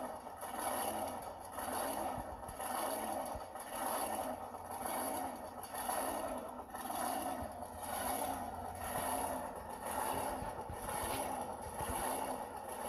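Big-rig diesel truck engine running, heard played back through a laptop speaker, its sound swelling and fading evenly about every three-quarters of a second.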